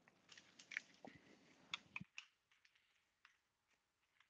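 Faint scattered clicks and light knocks of plastic airsoft magazines and a magazine pouch being handled, mostly in the first two seconds.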